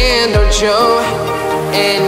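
Electronic pop song with a sung vocal line; a deep kick drum beats about twice a second and drops out about half a second in.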